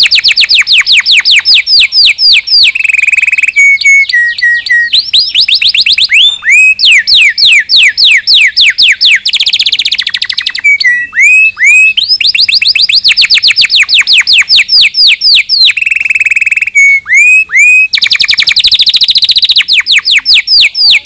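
Canary singing a loud, fast song: rapid trills of high whistled notes that each sweep downward, about ten a second, broken every few seconds by short held tones and rolls.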